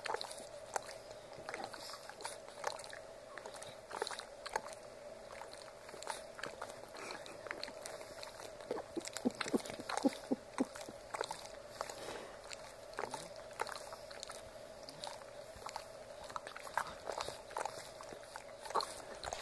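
Boston terrier licking, a run of short wet smacking clicks that come thickest about nine to eleven seconds in.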